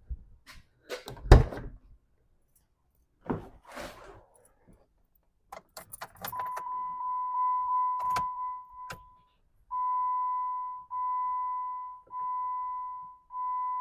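Keys jangling and a few thunks as someone gets into a 2013 Jeep Wrangler, then, with the key turned on and the engine not started, the dashboard warning chime: a steady electronic tone for about three seconds that then turns into beeps repeating about once a second.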